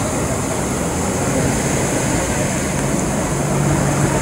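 Floodwater rushing over a submerged road bridge in a steady, even wash of noise. A truck's engine hum grows louder near the end as it drives through the water.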